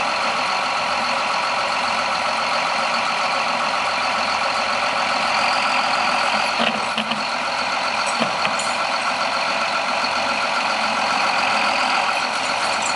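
Farm tractor's diesel engine running steadily at idle, with a few faint knocks about seven and eight seconds in.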